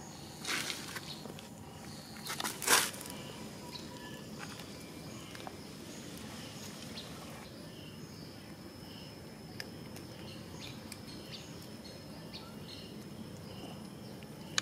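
Outdoor ambience: a steady faint hiss with small high chirps repeating roughly once a second. Two short harsh rasping bursts break in within the first three seconds, the second one the loudest.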